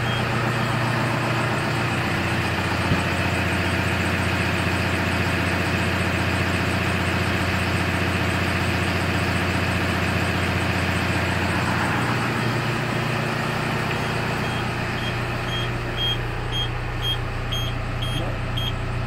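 Tadano ATF 80-4 mobile crane's diesel engine idling steadily, with a high warning beeper sounding about twice a second.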